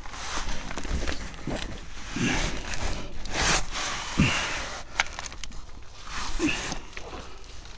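Someone crawling over flattened cardboard laid on dirt and rubble: irregular scraping and rustling as hands and knees drag across it, with a few sharp clicks about five seconds in.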